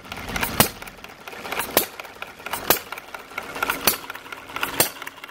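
Small homemade four-stroke hit-and-miss engine running at speed, with a sharp click about once a second and lighter mechanical ticking in between.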